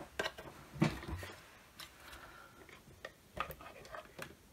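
Light clicks and knocks of the portable ultrasound scanner's plastic case and cables being handled and set down, a scattered handful of short taps with the loudest about a second in.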